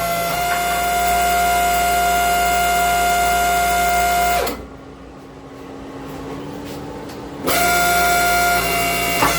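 Background electric guitar music holding a sustained chord. It drops out to a quieter, thinner sound about halfway through, then comes back for the last couple of seconds.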